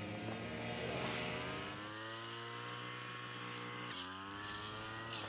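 Small engine of a grass-mowing machine running, its pitch drifting slowly up and down, with a sudden step down about four seconds in.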